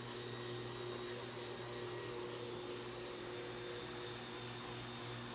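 BISSELL SpinWave spin mop running, its two coarse scrubbing pads spinning over wet, soap-sudsed deck boards: a steady motor hum.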